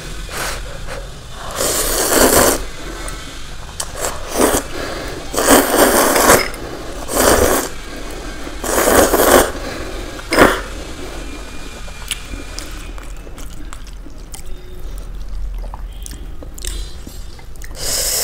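A person slurping soupy Maggi instant noodles off a fork in a series of loud, sucking slurps, about seven in all, the longest lasting about a second. The slurps come close together in the first ten seconds, then stop for several seconds before one more near the end.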